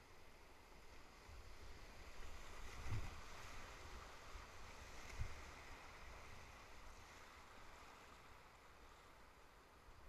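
Faint rush of a whitewater rapid, swelling a couple of seconds in and then easing, with two short low thumps about three and five seconds in.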